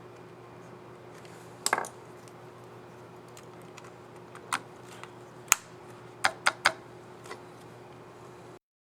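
Keys on an HP Spectre x360 15-eb laptop keyboard clicking as they are pressed. There is a short cluster of clicks about two seconds in, then single clicks, and a quick run of three near the end, over a faint steady hum.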